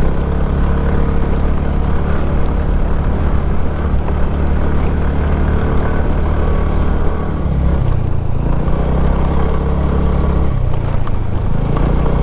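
Small two-wheeler engine running steadily under way, its note dropping and changing about eight seconds in and again near eleven seconds.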